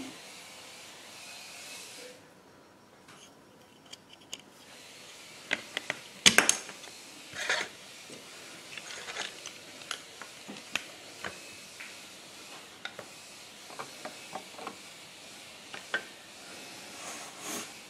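Plastic LEGO bricks clicking and knocking together as pieces of the set are handled: scattered sharp clicks, with a louder clatter about six seconds in.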